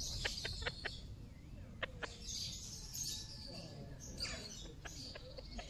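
Faint chirping of small birds, with a handful of short sharp clicks in the first two seconds.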